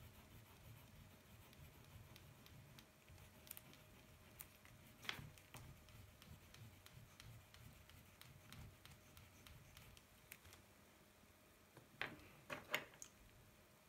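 Near silence: faint fingertip rubbing on paper as colour is blended, with a few soft ticks and rustles, a short cluster of them near the end.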